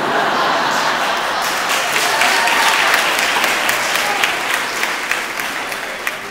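Audience applauding: a dense patter of many hands clapping that starts abruptly and gradually tapers off near the end.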